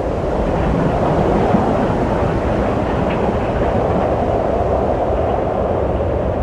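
Wind blowing steadily: a deep, continuous rushing with no rhythm, swelling a little in the first second.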